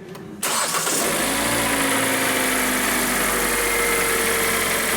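Kia Sportage 3's 2.0 G4NA inline-four petrol engine starting about half a second in, then running at a fast idle whose pitch slowly falls as the revs settle. This engine came in with a noise and knock, and it has scored cylinder walls.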